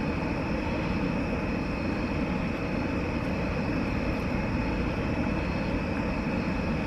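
Steady mechanical drone with a faint constant high whine.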